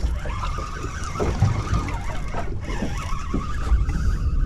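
Wind buffeting the microphone and water lapping at the hull of a small boat at sea, with a few light knocks and a faint steady high tone.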